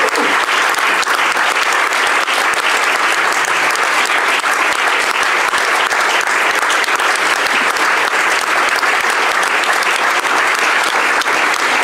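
A large audience applauding: dense, steady clapping of many hands that keeps up without a break.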